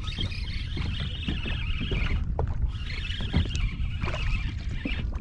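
Wind rumbling on the microphone and water slapping and lapping against a kayak hull, with scattered small knocks. A high, rapid whirring comes and goes over it, twice.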